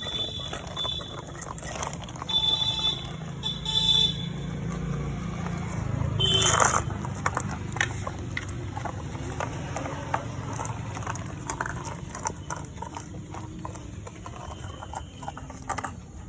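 Outdoor urban street noise: a steady low rumble with short high beeps about two and a half and four seconds in, and a brief loud rush of noise at about six and a half seconds.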